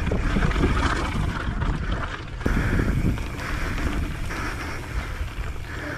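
Wind buffeting the microphone over a steady low rumble from a mountain bike rolling along a dirt trail, with a sharp knock about two and a half seconds in.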